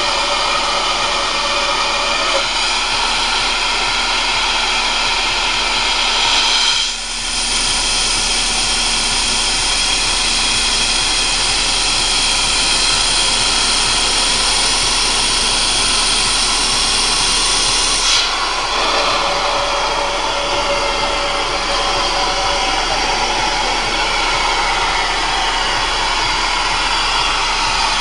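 Horizontal pneumatic-hydraulic rock drill running continuously: a loud, steady hiss and roar of machine noise. It drops briefly about seven seconds in, and about eighteen seconds in the highest hiss cuts out and the sound turns duller.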